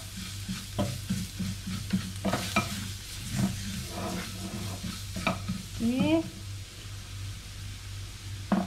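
A spatula stirring and scraping minced shallots, garlic and flour around a stainless steel frying pan in irregular strokes, over a light frying sizzle. The flour is being fried with the onions to make a roux for black pepper sauce.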